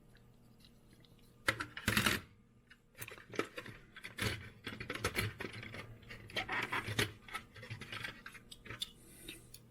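Small die-cast metal toy cars being handled and sorted through, with irregular clicks, clinks and scraping as they knock against each other.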